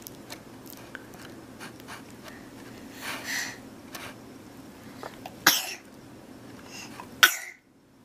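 A baby sneezing: a soft breathy sound, then two short, sharp sneezes a little under two seconds apart, the second cut off suddenly.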